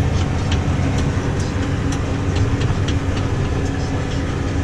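Tractor engine running steadily under load while it powers a Claas Uniwrap baler working in the field. There is a constant low hum, with scattered clicks and rattles from the machinery.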